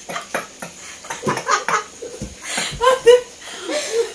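Giggling laughter with short, breathy bursts of air, loudest about three seconds in, while a sneeze is being coaxed with a blade of durba grass in the nose; no sneeze comes.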